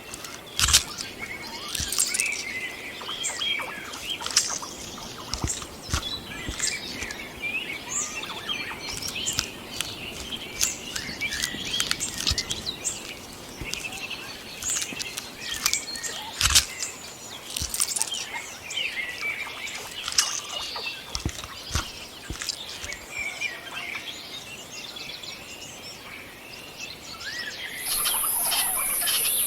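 Outdoor nature ambience of many birds chirping and calling, with scattered sharp clicks and rustles. Near the end, a loud, steady, high-pitched buzz starts.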